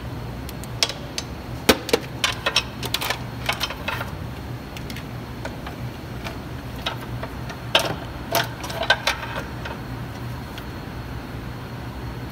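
Irregular metal clicks, clinks and knocks from tools and parts being handled while a transmission is worked into place under a vehicle. They come in two clusters, early and again in the middle, over a steady low hum.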